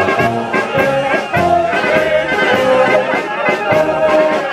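Village brass band playing a march as it walks: trumpets and baritone horns in a lively tune over bass notes, with a steady beat.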